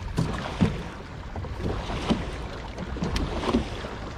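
Small waves slapping irregularly against a bass boat's hull, over a steady low rumble of wind on the microphone.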